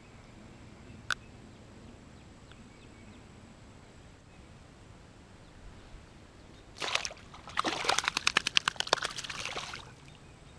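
A single sharp click about a second in, then a loud flurry of rapid splashing in the water lasting about three seconds near the end.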